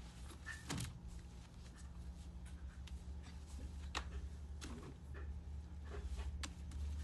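Scattered soft knocks, clicks and rustles as a person moves about and sits down on an upholstered wooden chair, over a steady low hum of room tone.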